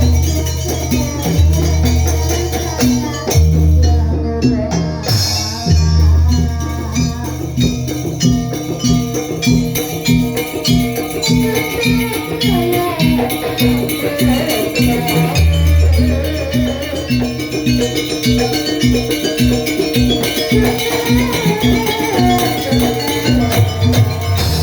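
Live Banyuwangi kluncing ensemble music: a steady fast beat of drums and percussion with a jingling rattle on top, and deep low notes swelling in every few seconds.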